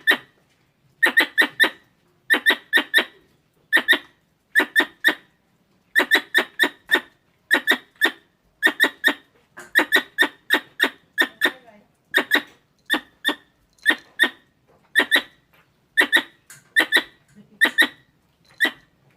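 Squirrel calls: sharp, squeaky chirps in quick clusters of two to four, repeating about once a second.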